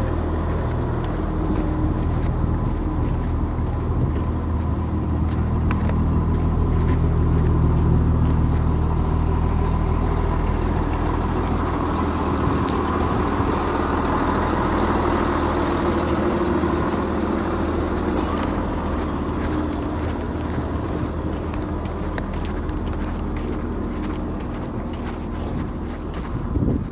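Class 170 Turbostar diesel multiple unit moving slowly past, its underfloor diesel engines giving a steady low hum with a thin whine above it. The hum swells about a quarter of the way in and drops away sharply at the very end.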